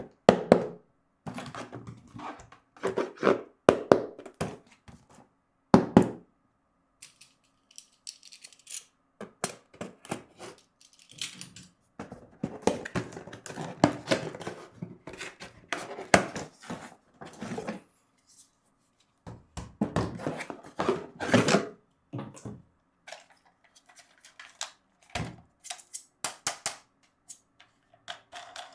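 Plastic toy parts and packaging being handled: irregular knocks, clicks and short scraping rustles, spread unevenly with brief pauses.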